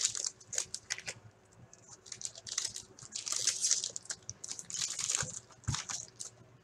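Foil trading-card pack wrapper crinkling as it is torn open, then the hockey cards inside being flicked through, heard as clusters of quick, sharp crackles and rustles.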